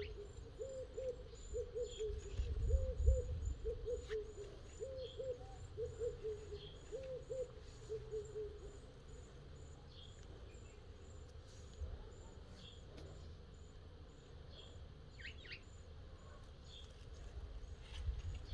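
A bird's low hooting calls, given as short two-note phrases repeated about once a second, stopping about halfway through. A faint, high, regular chirping runs on throughout over a low rumble.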